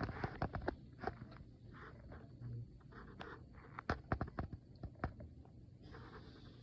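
Sparse raindrops tapping close to the microphone: irregular sharp clicks of varying loudness over a faint hiss.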